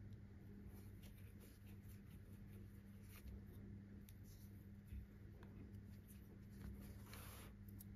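Near silence: faint rustling and light scratching of hands handling a crocheted soft toy and its yarn, over a steady low hum, with a slightly louder rustle near the end.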